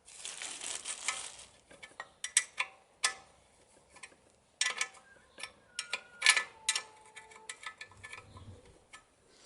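A rattling rummage of small steel parts, then a string of sharp metallic clinks, some ringing briefly: split washers and nuts being handled and fitted onto the fork spindle clamp studs.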